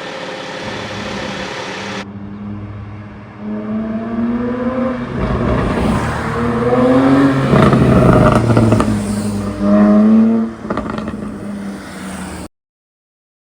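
Porsche 718 Boxster GTS 4.0's 4.0-litre flat-six revved three times from idle, each rev rising and falling, with crackles and pops as the revs drop, from an ECU pop-and-crackle tune. The sound cuts off suddenly near the end.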